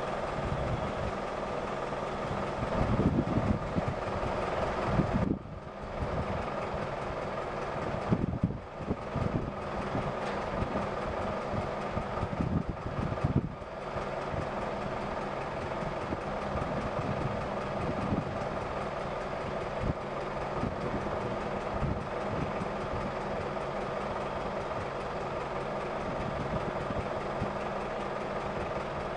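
Heavy diesel machinery running steadily with a low engine hum, louder rumbling stretches in the first half and a few brief drops in level.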